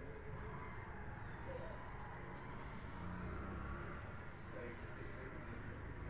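Outdoor street ambience: a steady low rumble with faint, brief bird chirps in the distance.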